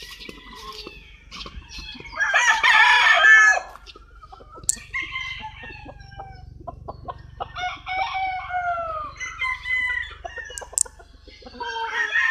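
Roosters crowing one after another, with chickens clucking between the crows. The loudest crow comes about two seconds in and lasts about a second and a half.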